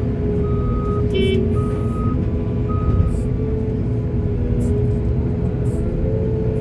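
Heavy diesel machinery engine running steadily, with a reversing alarm beeping three times at about one beep a second before stopping about three seconds in.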